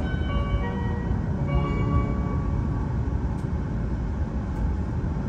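The last notes of the E7-series Hokuriku Shinkansen's onboard chime melody fade out over the first two seconds. Under them, the steady low rumble of the train running at speed, heard from inside the carriage.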